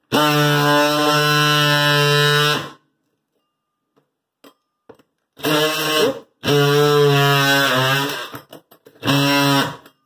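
Cordless DeWalt oscillating multi-tool buzzing as its blade cuts down into the floor where a broken tile is being chipped out. It runs in four bursts: a first one of about two and a half seconds, then three shorter runs with brief pauses between.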